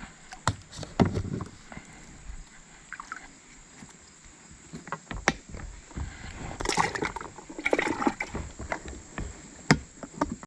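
Water sloshing and splashing with scattered sharp knocks and clicks, as gear and fish are handled at the water's edge; the loudest splashy bursts come about two-thirds of the way through.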